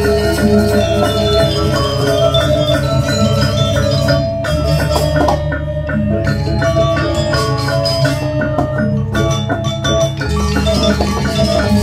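Balinese gamelan gong kebyar playing: bronze metallophones struck with mallets in quick, dense figures over sustained low tones.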